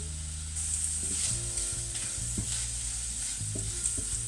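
Shrimp sizzling in a stainless steel frying pan, with a spoon stirring them and scraping and knocking against the pan from about a second in.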